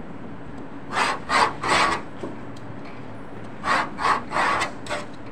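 Short rasping strokes of a small hand tool drawn over a paper pattern laid on material on a cutting table: three quick strokes, a pause, then four more.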